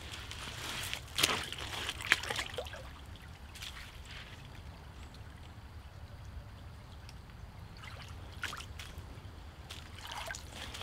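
Rubber boots wading through a shallow creek, with sharp splashing steps about one and two seconds in, a quieter stretch of trickling water, and more steps in the water near the end.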